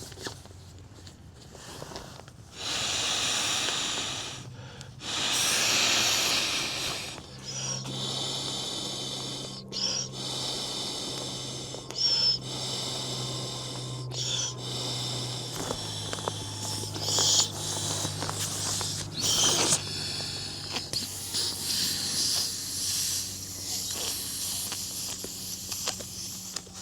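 Klymit Static V air mattress being inflated: a series of long hissing blows of air into its valve, the first two long and loud, then shorter ones, over a faint steady low hum.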